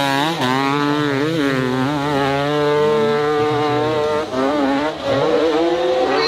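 Dirt bike engine revving hard under load on a steep climb, its pitch rising and falling again and again as the throttle is worked. The engine note drops off briefly twice near the end.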